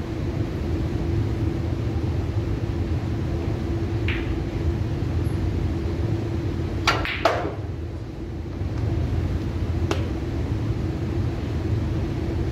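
A pool cue strikes the cue ball about seven seconds in, and the cue ball clacks into an object ball a fraction of a second later. A softer knock of a ball follows about three seconds after, over a steady low hum.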